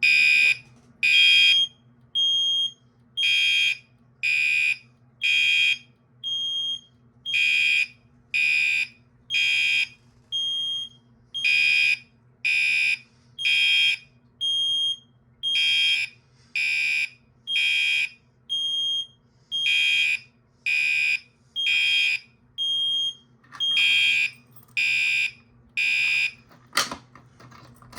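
Gentex Commander 3 electromechanical fire alarm horn sounding code 3 (temporal three): three loud blasts, a pause, then again, over and over. A household smoke alarm beeps with a thin, high tone alongside it. The horn stops about 27 seconds in, followed by a single click.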